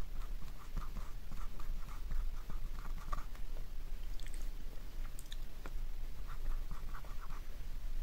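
Marker pen tip rubbing across a whiteboard in short writing strokes. The strokes stop for a couple of seconds midway, with a few light clicks, then start again.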